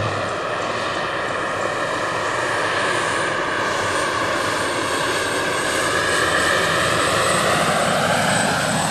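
Turbine-powered scale model Mil Mi-24 helicopter in flight: a steady high turbine whine over the rotor noise. Its pitch sags slowly, then climbs again near the end, and it gets a little louder in the second half.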